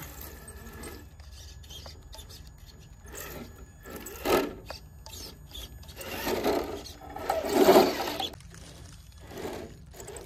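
A TRX-4 Sport RC crawler's brushed electric motor and geartrain whirring in several short bursts of throttle as it climbs steep rock, with its tyres scraping and scrabbling on the stone. The loudest burst comes about three-quarters of the way through.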